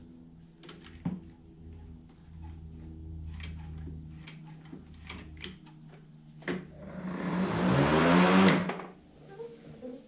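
Greenworks 40V cordless lawn mower's electric motor and blade spinning up with a click of the switch, then a rising whir for about two seconds that cuts off suddenly. The mower now starts, its stretched switch cable adjusted so that it engages the switch. Before it, faint steady background music and small clicks.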